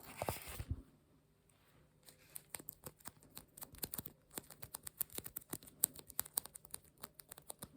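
Rapid, irregular light taps and clicks close to the microphone, starting about two seconds in after a brief rustle.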